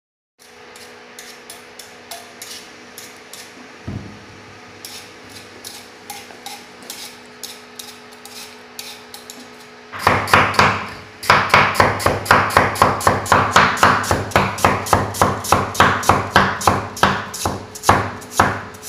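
Kitchen cleaver slicing peeled lotus root on a wooden chopping board: quick, even knocks of the blade on the board, about four a second and loud from about halfway in. Before that the knocks are fainter and sparser over a low steady hum.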